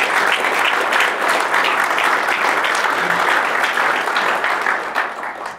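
Audience applauding: many people clapping steadily in a room, dying away near the end.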